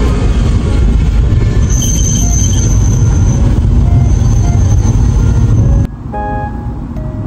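Loud, steady low rumble of a vehicle on the move, under soft background music. The rumble cuts off abruptly about six seconds in, leaving the music with chime-like notes.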